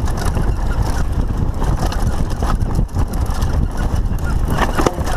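Wind rushing over the microphone and a steady rumble and rattle from a Lapierre Spicy 516 mountain bike ridden fast down a rough dirt track, with short knocks as it hits bumps.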